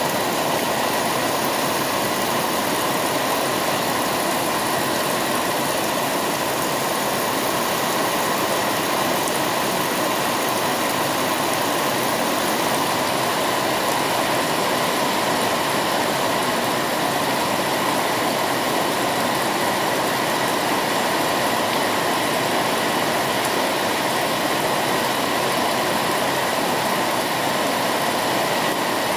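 Heavy rain pouring down in a steady, unbroken hiss on leaves and ground, with runoff streaming off a roof edge.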